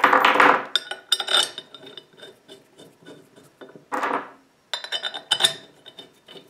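Aluminum mounting plate being fitted onto an electric motor's face and bolts put into it: four short bursts of metal clinking and scraping, some with a brief metallic ring.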